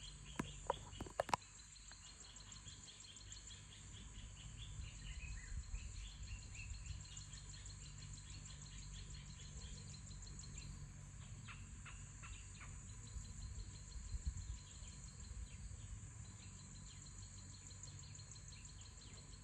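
Insects trilling steadily at a high pitch, with scattered faint bird chirps and a low rumble underneath; a few sharp clicks about a second in.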